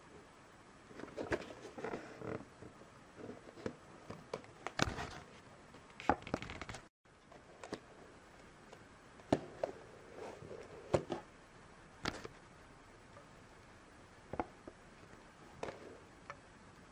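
Fingers gripping and turning a cardboard box with a clear plastic window: scattered light taps, scrapes and rustles of the cardboard. The sound cuts out completely for a moment about seven seconds in.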